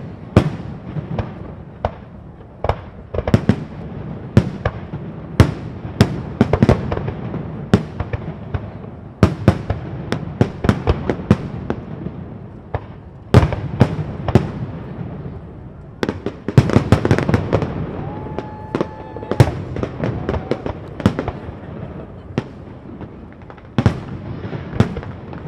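Aerial fireworks shells bursting close by, heard as dozens of sharp bangs, some in quick clusters, over continuous crackling. About three quarters of the way through, a brief steady whistle-like tone sounds among them.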